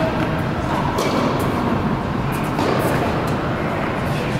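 Steady rumbling background noise of a large indoor tennis hall, with a few faint short knocks.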